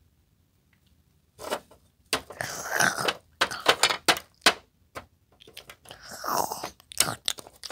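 Chewing and crunching close to the microphone, coming in irregular bursts from about a second and a half in, with a short pause near the five-second mark.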